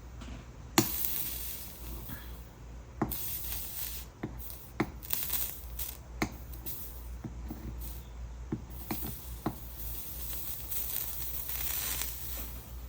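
Sharp clicks and taps of a soldering iron and tools on copper-foiled glass pieces, about a dozen in all, with several stretches of high hiss in between.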